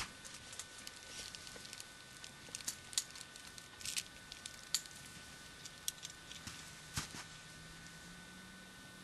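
Scattered small clicks and rustles of a climbing rope and its hardware being handled, with a few sharper clicks standing out.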